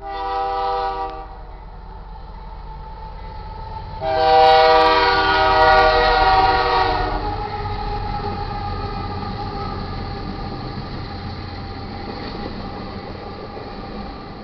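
Diesel locomotive air horn on a GE AC44CW sounding a short blast, then after a pause a louder blast of about three seconds, followed by the steady rumble of the train's locomotives and cars passing.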